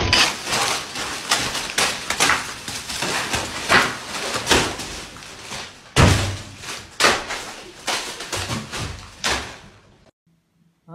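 A run of knocks and bangs over a rustling noise, with the loudest bang about six seconds in; it all stops near the end.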